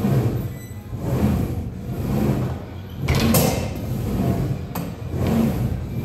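Music with a steady low beat, pulsing a little under once a second. A short rustling burst comes about three seconds in, and a sharp knock near five seconds.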